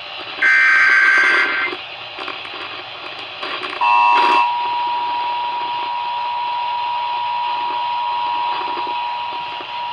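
Emergency Alert System broadcast tones: a burst of SAME header data tones lasting just over a second, starting about half a second in, then from about four seconds in the steady two-tone EAS attention signal sounding continuously.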